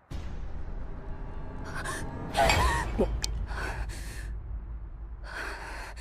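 A woman's breathy gasps and sighs, four in a row, the loudest with a short falling voiced sound, over a low steady hum. A single sharp tick comes about three seconds in.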